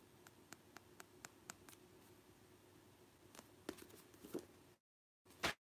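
Faint handling noises over a low steady hum: soft clicks about four a second, then a few louder knocks. The sound cuts out completely for about half a second, followed by a single thump near the end.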